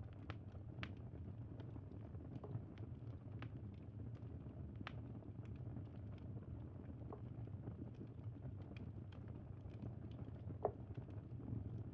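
Campfire crackling: irregular small pops and snaps over a low steady rumble, with one louder pop about ten and a half seconds in.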